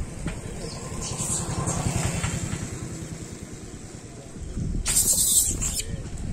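Low, choppy rumble of wind buffeting the microphone, with a short burst of hiss about five seconds in.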